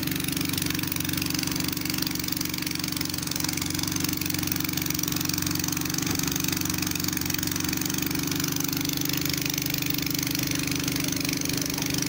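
Escorts F15 pick-and-carry crane's diesel engine idling steadily.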